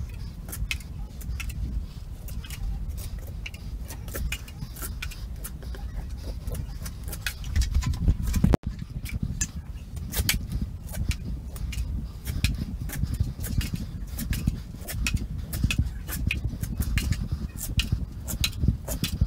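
Hand tool scraping against drywall at a wall-to-ceiling corner: irregular sharp clicks and scrapes over a low rumble of handling noise, with a brief drop-out about eight and a half seconds in.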